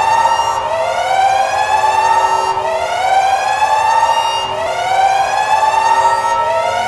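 Alarm siren with a rising wail: its pitch climbs for about two seconds, drops back low and climbs again, repeating steadily.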